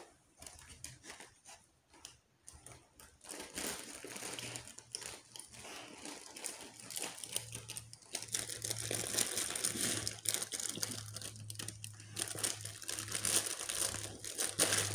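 A dog nosing and pawing at a plush backpack toy for treats hidden in its pockets, crinkling the paper inside. A few scattered clicks at first, then steady crinkling and rustling from about three seconds in, growing louder toward the end.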